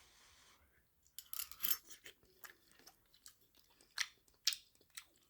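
A person chewing a mouthful of noodle soup with wet lip-smacking: a cluster of smacks and clicks about a second in, then single smacks spaced out towards the end.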